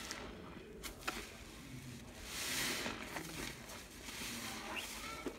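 A soap-soaked black sponge squeezed and wrung by hand in soapy water: wet squishing of the sponge and its lather, with a few sharp clicks and one longer, louder squeeze about halfway through.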